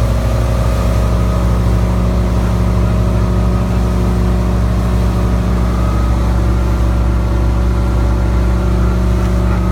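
Motorboat's engine running steadily at cruising speed, with the rush of wind and water from the hull under way.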